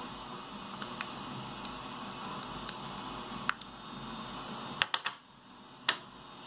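Scattered light clicks and taps as 3D-printed plastic parts and a metal hex key are handled on a hard tabletop, with a quick cluster of clicks near five seconds in, over a steady background hiss and hum.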